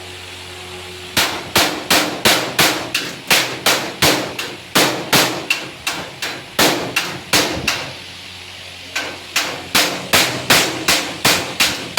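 Hammer blows struck in quick succession, about two to three a second, stopping for about a second near eight seconds in and then resuming.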